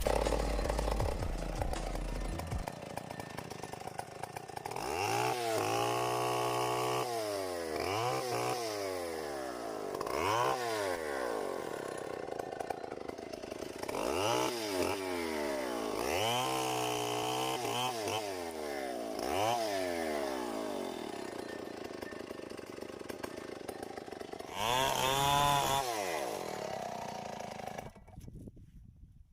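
Tecomec two-stroke chainsaw revving up and down again and again, held at high revs for a second or two at a time as it cuts into mango wood, then dropping away near the end.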